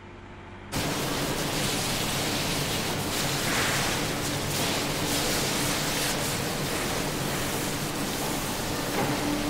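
Faint ambience, then, about a second in, an abrupt switch to loud, steady slaughterhouse machinery noise: an even rushing hiss with a low hum beneath it.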